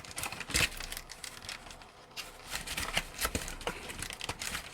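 Packaging being handled: crinkling and rustling with scattered light clicks and knocks, one louder knock about half a second in.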